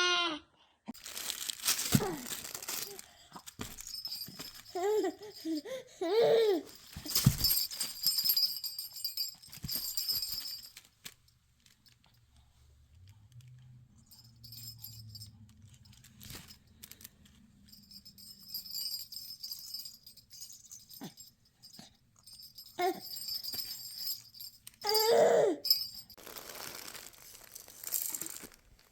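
A baby's short vocal sounds, rising and falling squeals a few times, with jingling like a shaken rattle toy and scattered handling clicks in between.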